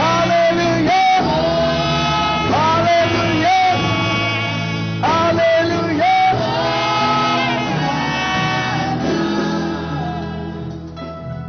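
Church choir singing a praise song with instrumental accompaniment; the music grows softer near the end.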